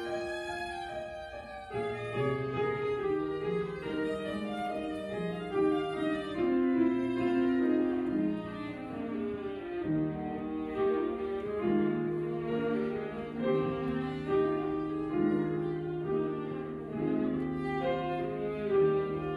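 Violin playing a classical melody with piano accompaniment.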